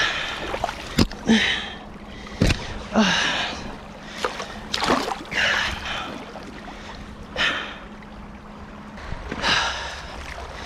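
A person's heavy breaths and sighs every second or two, with water sloshing around legs wading in a shallow river. There are two short clicks in the first few seconds.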